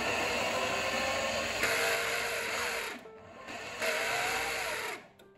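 Countertop blender running, churning a thick silken-tofu mayonnaise mixture. It runs steadily for about three seconds, drops off briefly, then runs again for about a second before cutting off.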